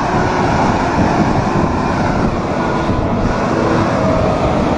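A Mercedes-Benz semi-truck with a loaded trailer passing close by: its diesel engine is running with a steady drone over loud, even road and tyre noise.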